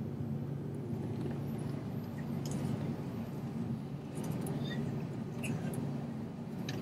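Steady low hum of an airliner's jet engines at idle, heard inside the cabin as the plane taxis, with a few faint clicks and rattles.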